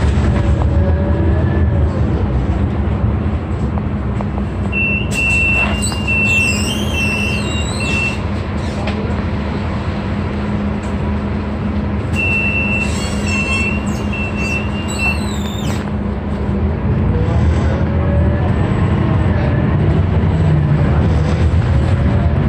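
Steady drone of a city bus's engine and road noise on the move. Twice, about five and twelve seconds in, a high, steady squealing tone lasts about three seconds.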